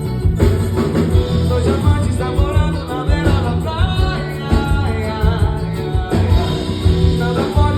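Pagode music: a voice singing over plucked strings, bass and percussion.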